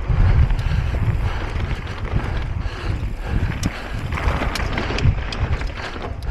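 Wind buffeting the microphone while an e-mountain bike descends a rough trail at speed: a steady low rumble from the tyres on the ground with scattered sharp clicks and knocks.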